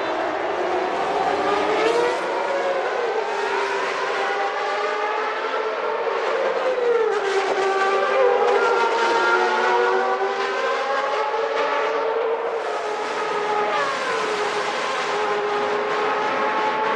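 Early-1990s Formula One race car engines running at high revs. The pitch dips and climbs back several times, as on gear changes, and more than one engine note overlaps.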